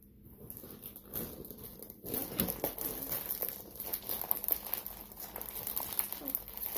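Plastic bag of store-bought pizza crusts crinkling in irregular crackles as it is handled and pulled at to open it, starting about two seconds in.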